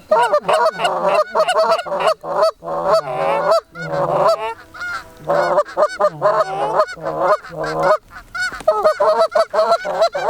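Geese honking and clucking in rapid, overlapping runs, loud and close, with short breaks about two and a half, five and eight seconds in.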